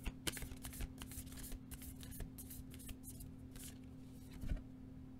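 Pegasus Oracle cards being shuffled by hand: a quick, crisp run of card slides and flicks for about four seconds, then a soft thump.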